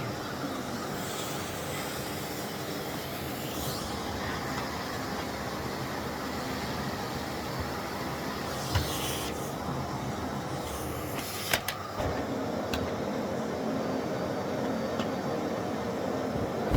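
Miele CX1 Blizzard bagless vacuum cleaner running steadily, with a few sharp knocks about halfway through, as of the nozzle striking something.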